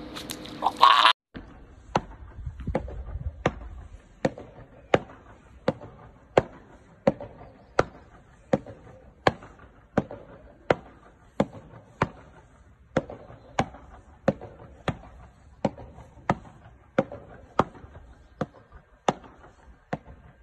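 A ball being struck back and forth with hard beach paddles in a steady rally, one sharp hollow pock about every 0.7 seconds. A brief loud rush of noise cuts off abruptly about a second in, before the hits begin.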